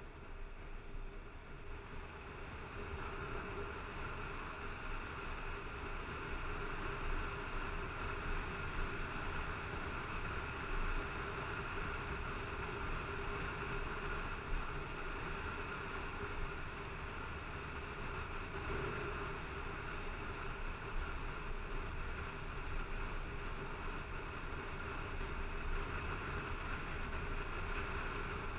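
Motorcycle riding steadily along a dirt road: engine running with wind and tyre noise, heard from a camera mounted on the rider's helmet. It grows a little louder over the first few seconds, then holds steady.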